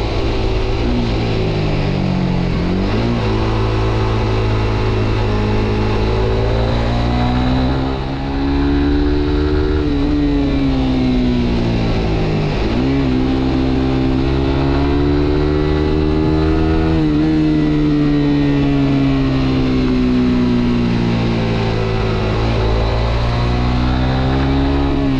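Suzuki GSX-R125's single-cylinder four-stroke engine on the move, its pitch rising and falling smoothly as the rider opens and eases the throttle. It dips sharply and recovers about two and a half seconds in and again about halfway through, with a steady hiss of wind and road noise underneath.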